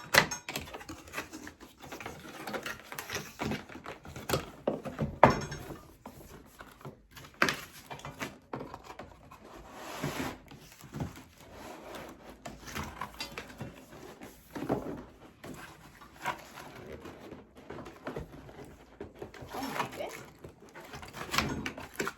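Cardboard box and its packing being opened and handled by hand: irregular rustling and scraping with scattered knocks and clatters.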